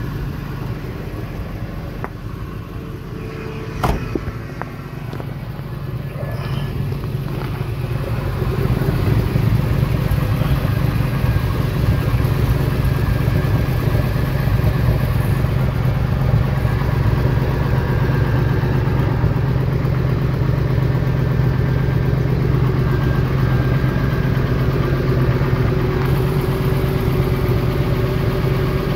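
2005 Ford Econoline E-250 van's engine idling steadily, with a sharp click about four seconds in. The idle grows louder about eight seconds in and stays there.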